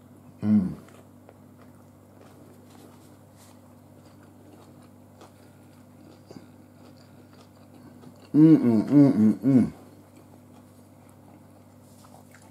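A man chewing a mouthful of barbecue rib sandwich, with a short "mm" about half a second in and a louder, drawn-out "mmm" of relish about eight seconds in, its pitch rising and falling several times. A faint steady low hum runs underneath.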